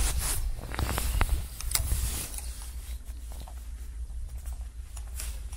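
Fishing rod and spinning reel being handled: a few sharp clicks and knocks in the first two seconds and another about five seconds in, over a steady low rumble on the microphone.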